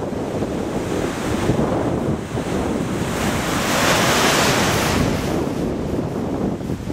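Sea waves breaking against a harbour pier wall and washing along it as foam, over heavy wind buffeting the microphone. A louder rush of surf swells up in the middle and then eases off.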